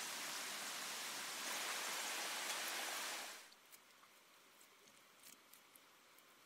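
Steady rain falling on leafy plants, an even hiss that fades out about three seconds in. Then faint, soft pats and scrapes of wet mud being smoothed by hand onto an earthen pit wall.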